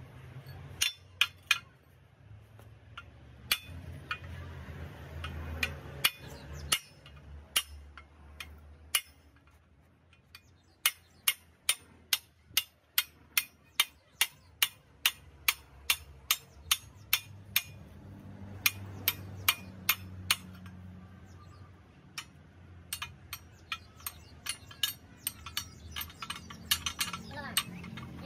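Hammer striking a steel punch on a Komatsu 130 excavator track chain: sharp metallic clinks, scattered at first, then a steady run of about two to three blows a second in the middle, then quicker irregular taps toward the end.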